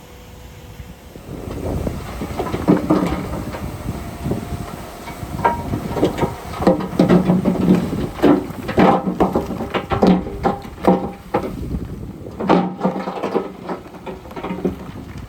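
Heavy earthmoving machinery at work, with an irregular run of loud clanks and rattles over a low engine hum, the clatter growing busier about halfway through.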